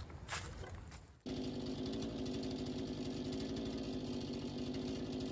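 A few footsteps for about a second, then, after a sudden cut, an engine running steadily at an even pitch.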